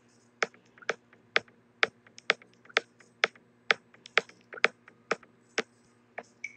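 A steady rhythm of sharp clicks, about two a second, with fainter ticks between, over a faint low hum.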